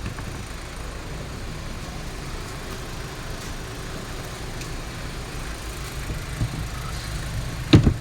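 A vehicle engine idling steadily in the background, a low, even rumble. A single sharp knock sounds near the end.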